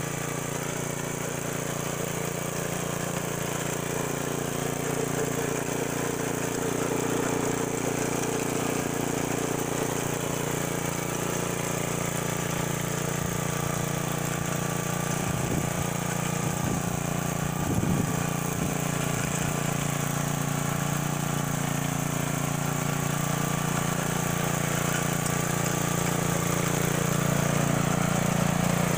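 Red rear-tine gasoline rototiller running steadily, its small engine under load as the tines work garden soil.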